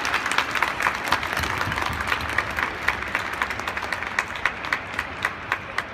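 Small audience applauding in an arena, the applause slowly dying down, while one nearby pair of hands keeps clapping at a steady pace of about three claps a second.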